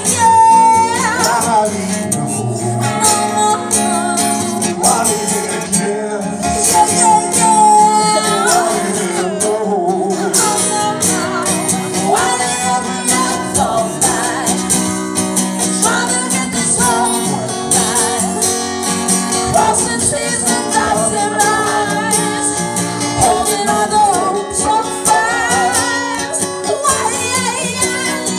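Live acoustic duo: an acoustic guitar strummed under singing voices, with a tambourine shaken along.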